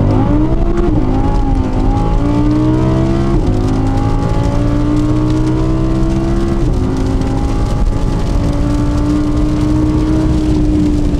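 Audi R8 RWS's naturally aspirated V10 pulling through the gears under acceleration: the engine note climbs steadily in each gear, with quick upshifts of the seven-speed S tronic about a second, three and a half and nearly seven seconds in. After the last shift the note holds fairly level and eases slightly near the end.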